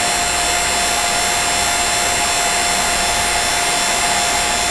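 Refrigeration vacuum pump running steadily with an even whir and a constant whine, evacuating and dehydrating a water-source heat pump's refrigerant circuit, which has been pulled down to around 400 microns.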